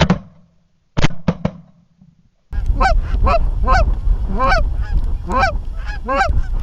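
Shotgun shots at geese: a quick double shot at the start, then three rapid shots about a second in. About two and a half seconds in it cuts to geese honking over and over, two to three honks a second, over a low wind rumble.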